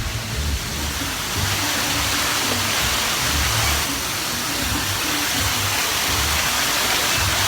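Steady rushing noise of a theme restaurant's artificial waterfall and rain effects, swelling louder about a second and a half in, over low background music.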